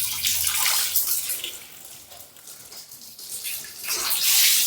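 Water running and splashing, loud at first, dropping away in the middle and swelling again near the end.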